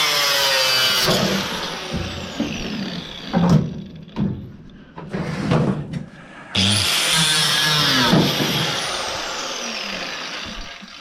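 Electric drill running in two long bursts, the first stopping about a second in and the second starting about six and a half seconds in. Its whine falls away as the motor winds down after each. Knocks of metal parts come in between.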